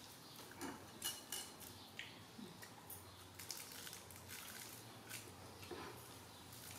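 Faint, scattered light taps, clicks and rustles of small objects being handled at a meal: a small drink carton and plates on a wooden table.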